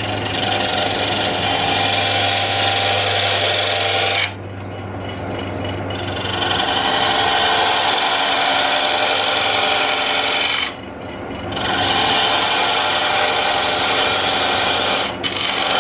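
Diamond parting tool cutting into a wooden goblet blank spinning on a Jet wood lathe, a loud scraping hiss in three long passes of about four seconds each with short pauses between, cutting grooves that mark the goblet's sections. The lathe's motor hums steadily underneath for the first half.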